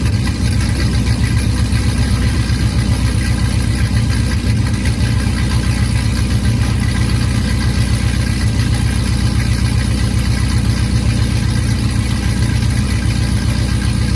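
Dodge Charger Hellcat's 406 cubic inch Hemi V8 with a custom cam, idling steadily and loudly with no revving.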